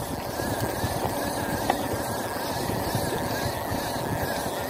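Steady hum of a boat engine running, with wind and sea noise around it.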